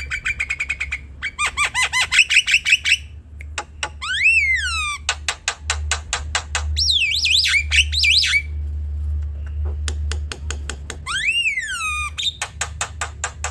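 Javan myna singing a varied, chattering song: fast runs of repeated notes, rattling clicks, and loud swooping whistles that rise and then fall in pitch.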